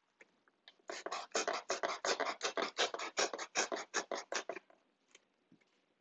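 Small knife sawing through a cardboard juice carton: a quick, even run of scratchy strokes, about seven a second, starting about a second in and stopping after nearly four seconds.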